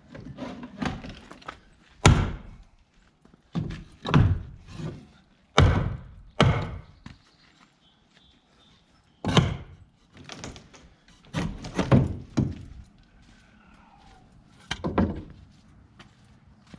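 Heavy, irregular blows on wood, some in quick pairs with pauses between: wall boards being knocked loose from the shed's framing to open a doorway.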